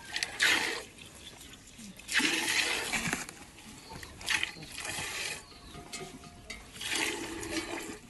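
Milk squirting from a cow's teat during hand milking: a series of short, irregular spurts.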